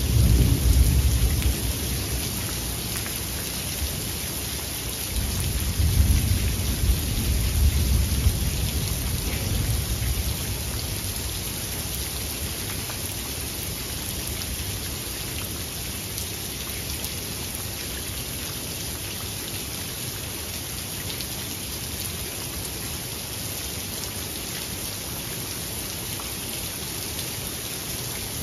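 Steady rain falling, with rolling thunder: a low rumble fading away over the first couple of seconds, and another rolling peal from about five to ten seconds in. After that, rain alone.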